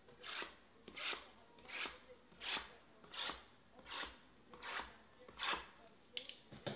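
Utility knife blade slitting the plastic wrap on a stack of cardboard card boxes, one box after another: seven quick, even swipes about three-quarters of a second apart, then a couple of light clicks near the end.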